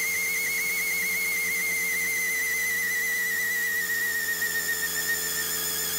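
Fast-forwarded sound of an air compressor running while an air ratchet turns a spark-plug thread reamer: a high, steady whine with a fast wobble that slowly falls in pitch.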